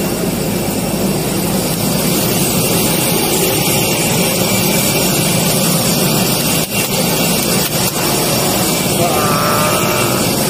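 Steady, loud rushing noise of a moving vehicle in transit, with a faint voice near the end.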